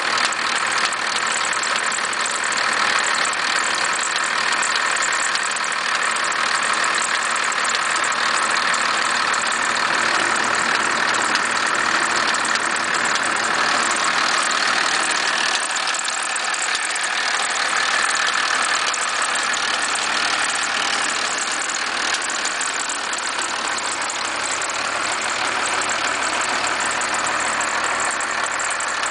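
First-generation Cummins 12-valve 5.9-litre inline-six diesel idling steadily with a fast, even knock/rattle running through it, a noise whose cause the owner cannot pin down.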